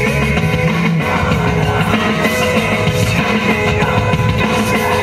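Loud, steady rock music with drums and held notes.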